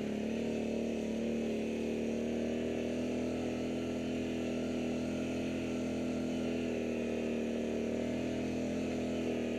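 ATV engine running at a steady cruising speed as the quad rolls along a dirt trail, its pitch holding even throughout.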